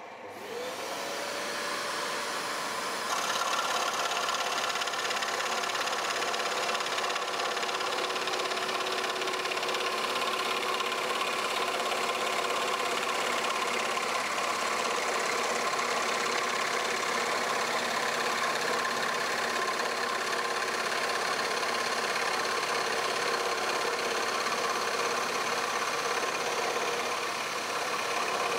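Axminster AW405FS scroll saw motor starting and coming up to speed within about a second. It then runs steadily while its reciprocating blade cuts 8 mm plywood, getting louder about three seconds in.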